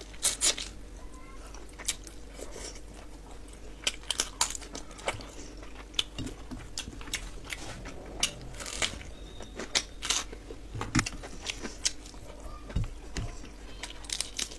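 Close-miked eating: crunchy bites and chewing of fried chicken, with many sharp, irregular mouth clicks and crunches.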